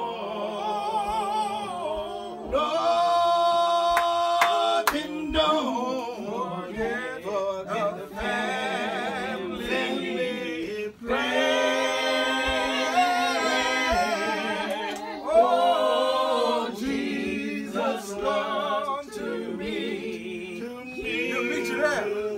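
Unaccompanied singing of a slow religious song, long held notes with vibrato and short breaks between phrases.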